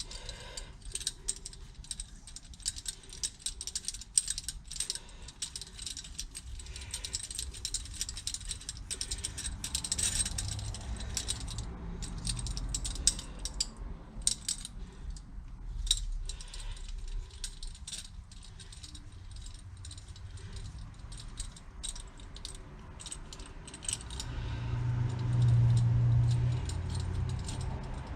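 Small metal tools and parts clinking and rattling as they are handled, many short sharp clinks at irregular intervals. A low hum grows louder for a few seconds near the end.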